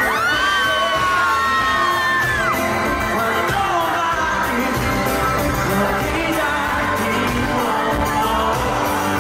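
Live pop band playing with drums and acoustic guitar, with singing over it, heard from the audience.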